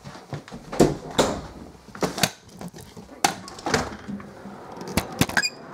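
Handling noise from a handheld camera: a series of sharp knocks and bumps at uneven intervals as it is moved about, the loudest a little under a second in.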